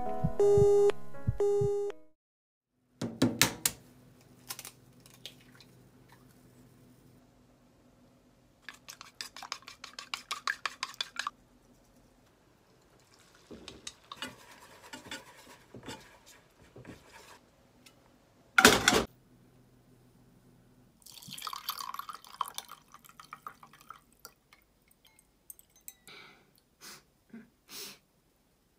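Home cooking of an omelette on a gas stove: a steady low hum under rapid clicking and the patter of beaten egg poured into a frying pan, with one loud clatter of a pan or utensil about two-thirds of the way in. Near the end, a metal spoon clinks against a plate.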